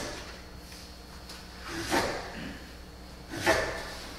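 Three short scrapes of hand tools on wood, about a second and a half apart: a marking knife scoring a pine board and tools being shifted on the table.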